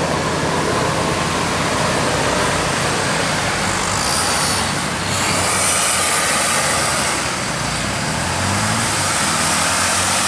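Road traffic: a large vehicle's engine running as it passes close by, with a short hiss about four seconds in and an engine note rising near the end.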